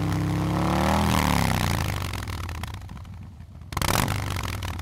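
Motorcycle engine revving up, rising in pitch for about a second and then fading away, followed by a sudden short burst of noise near the end.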